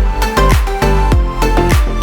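Electronic dance music with a steady beat: a pitch-dropping kick drum about twice a second under bass and held synth notes.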